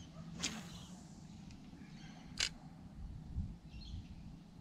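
Spinning rod being cast from a boat: a quick swish about half a second in, then a single sharp click about two seconds later, over faint low background rumble.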